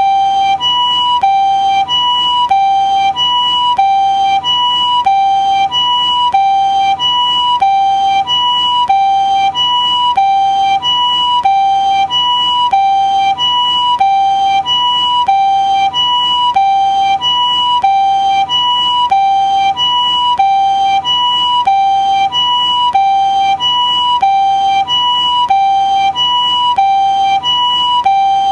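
Japanese ambulance two-tone siren sounding its "pee-po" call: a higher and a lower steady tone alternating evenly, each held about two-thirds of a second, repeating without change.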